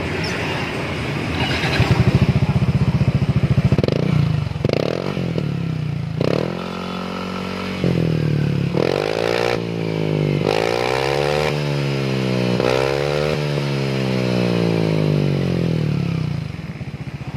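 Motor scooter engine running through an aftermarket muffler, revved up and down again and again with quick throttle blips, then settling back near the end. The exhaust note is still a little raspy, which the owner finds not mellow enough.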